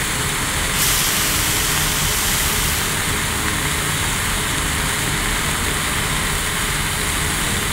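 Thin beef burger patties sizzling steadily on a hot, oiled cast-iron grill plate.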